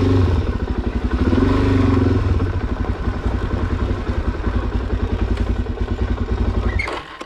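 Suzuki DR-Z400SM's single-cylinder four-stroke engine running under the rider on a rough dirt track, with an even pulsing beat. The revs rise and fall once between about one and two seconds in, and the engine sound cuts off shortly before the end.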